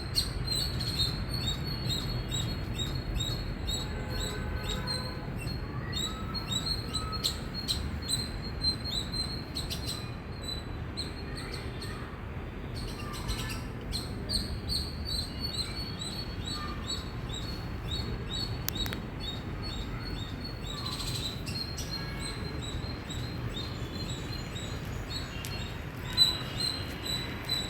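Indian palm squirrel chirping: a long run of rapid, high-pitched chirps repeated several times a second, over a low steady rumble.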